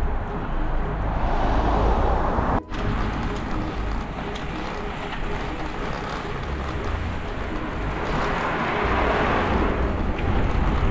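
Wind rushing over the microphone of a camera on a moving road bike, with road rumble: a steady, noisy hiss and rumble that drops out for an instant about two and a half seconds in.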